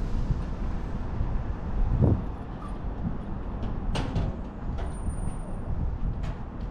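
Outdoor ambience: a steady low rumble, with a dull thump about two seconds in and a few short, sharp clicks from about four seconds on.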